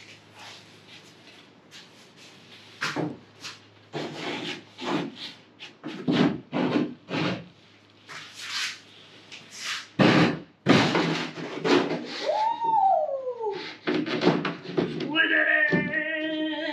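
Plywood camper panel being worked into a tight fit: irregular wooden knocks, bumps and rubbing. About two-thirds of the way through comes a drawn-out sound falling in pitch, and near the end a person's strained, wavering vocal sound without words.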